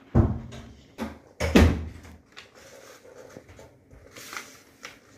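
Sheet of paper being folded and creased by hand on a plastic tray: soft crackling rustle, with a few sharper knocks in the first two seconds as the hands and paper bump the tray.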